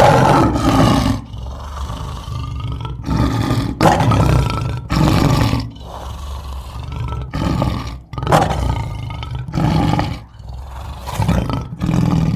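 A large animal roaring in a series of loud calls, each about a second long, with short gaps between them.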